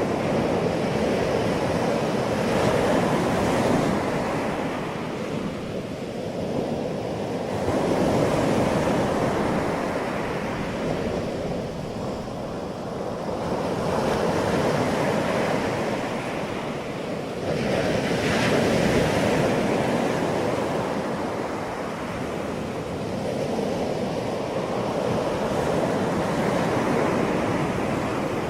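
Ocean surf: waves breaking and washing ashore in a continuous rush that swells and eases about every five to six seconds, around five surges in all.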